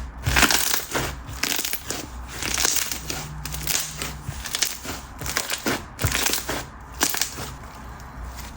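Coated clear slime with bingsu beads being squished and pressed by hand, giving crispy crunches and crackles in irregular bursts every second or so.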